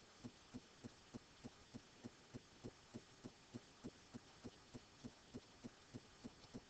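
Near silence with a faint, regular low tick, about three soft pulses a second.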